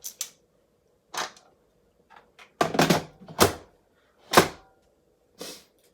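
Lid of an electric multicooker being fitted and locked shut: a string of separate clunks and clicks, the loudest about four and a half seconds in.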